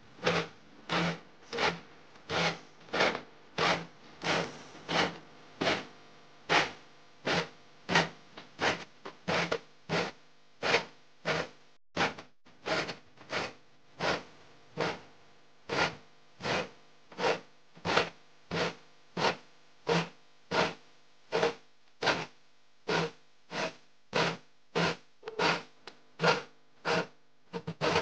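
A hand file drawn across the teeth of a dull handsaw to sharpen them: a steady rhythm of short rasping strokes, a little under two a second, with a brief pause near the middle.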